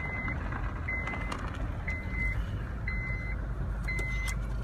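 An electronic vehicle warning beeper sounding a high, steady beep about once a second, five times, over a low engine and road rumble.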